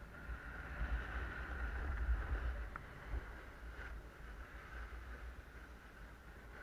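Snowboard sliding across snow, a steady hiss, with low wind rumble on the microphone that is heaviest in the first three seconds.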